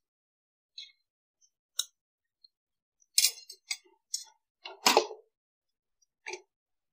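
Wire-mesh spider strainer clinking and scraping against the inside of an aluminium pressure cooker as jackfruit pieces are scooped out. A scattered run of short clinks and knocks, thickest and loudest about three to five seconds in.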